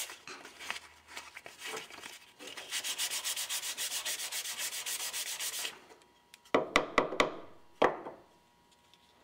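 Sandpaper rubbed by hand back and forth along the side of a wooden harpsichord key, in quick, even strokes of about four a second, smoothing the key. The sanding stops about six seconds in, followed by a few sharp knocks.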